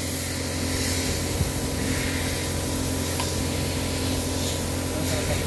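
Steady workshop background noise: an even motor hum with a hiss over it, with no marked changes.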